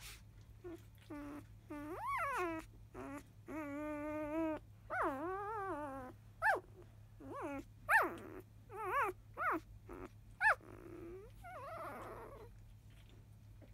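Newborn Labrador Retriever puppy whimpering and squeaking: a string of short cries that rise and fall in pitch, a few sharp high squeaks, and a longer steady whine about four seconds in. The cries turn rougher near the end.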